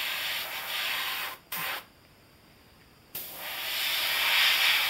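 Airbrush spraying black paint in bursts of hiss as the trigger is worked: one of about a second and a half, a brief one just after, then, after a pause of over a second, a longer burst that grows louder.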